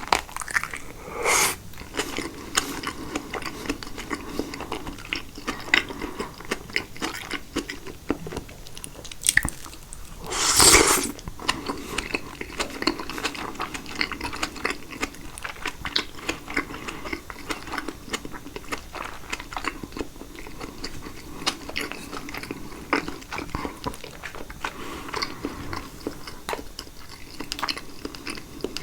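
Close-miked chewing of caprese salad (tomato and fresh mozzarella in balsamic dressing), with many small wet mouth clicks and smacks throughout. Two louder, longer mouth sounds stand out, one about a second in and one about ten seconds in.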